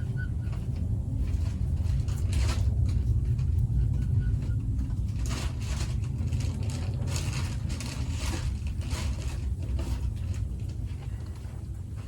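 Vehicle driving slowly over a rough farm track: a steady low rumble with scattered rattles and crunches.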